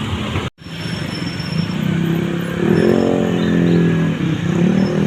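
Bus engine accelerating, its exhaust note getting louder and rising in pitch about two seconds in, easing briefly near four seconds, then picking up again.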